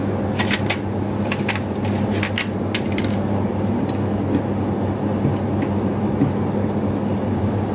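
Small hard plastic clicks and taps as the parts of a Philips faucet water filter are handled, a quick run of them in the first three seconds and a few more later, over a steady low hum.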